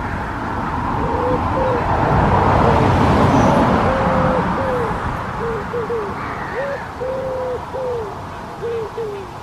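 A pigeon cooing in a run of short low notes, some held level and some falling, over a swell of rushing noise that is loudest about three seconds in.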